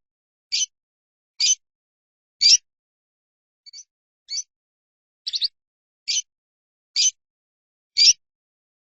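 Recorded songbird calls used as bird-training audio: short, high chirps repeated about once a second, with dead silence between them.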